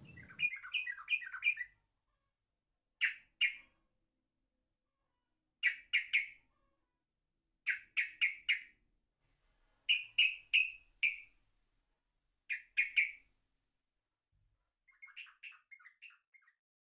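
A small bird chirping in short groups of two to four high chirps every two to three seconds, with a run of quicker twittering at the start and again near the end.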